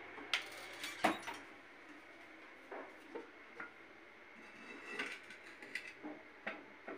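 Scattered light clicks and knocks, about ten of them at uneven intervals, the loudest about a second in, over a faint room hiss.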